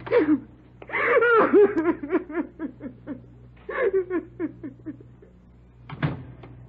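A woman sobbing in quick, high, gasping pulses, in two main bouts.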